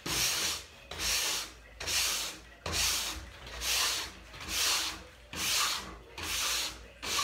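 Nylon brush scrubbed along a snowboard base in about eight even back-and-forth strokes, a little under a second apart, brushing leftover old wax out of the base structure.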